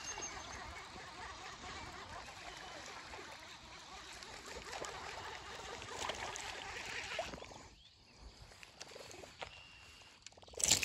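Fishing reel cranked steadily as a small largemouth bass is played in on a hard-bodied lure, the winding stopping about seven and a half seconds in. Near the end a short, sharp splash as the fish is swung out of the water.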